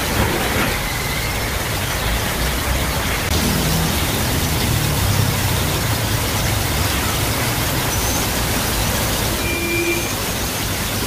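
Heavy rain pouring down in a steady hiss, with bus and car engines running in the traffic alongside. A short high beep sounds near the end.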